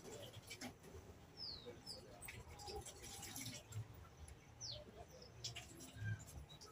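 Faint outdoor background: a few short, high bird chirps that fall in pitch, coming in pairs a second or two apart, with scattered faint clicks over a low rumble.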